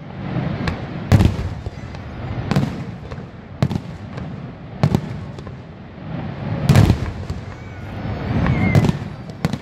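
Aerial fireworks going off: a string of sharp bangs and booms at irregular intervals, about eight in all, over a continuous low rumble. The heaviest booms come about a second in and again near seven seconds.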